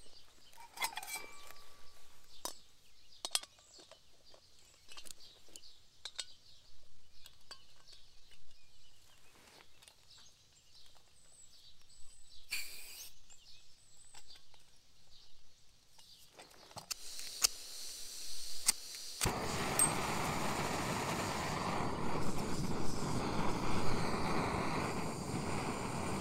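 Quiet forest ambience with scattered small clicks and a few faint bird chirps. About two-thirds of the way through, it switches suddenly to a steady rushing noise.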